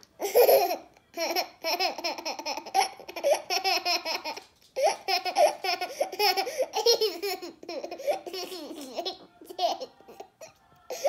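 Toddler laughing in several long runs of rapid giggles, broken by short pauses.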